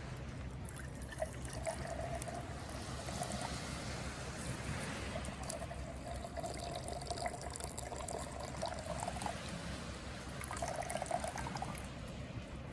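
Coffee poured from a Bialetti Moka Express stovetop pot into a cup: a steady trickling pour that stops, then comes back briefly near the end.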